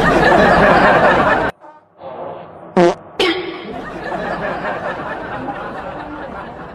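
Prank fart sounds: a loud, noisy blast lasting about a second and a half, then a short pitched one a little less than three seconds in, followed by people laughing and chattering.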